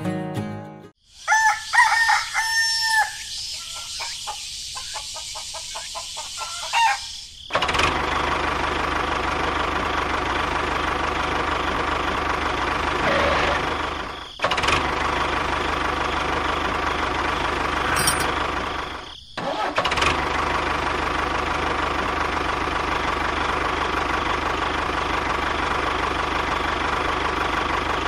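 A rooster crowing, then from about seven seconds in a small engine running steadily, dropping out briefly twice.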